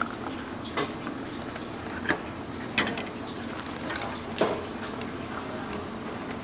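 About five sharp knocks and clinks of kitchen utensils, spread irregularly over a steady background hum of a street-food stall.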